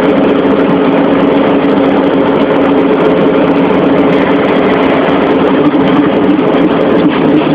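Heavy grain-hauling vehicle's engine running steadily at an even pitch.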